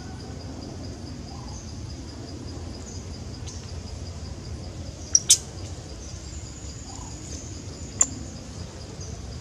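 A steady, evenly pulsing insect trill over a low background rumble, broken by short shrill squeaks: two close together about five seconds in and one about eight seconds in.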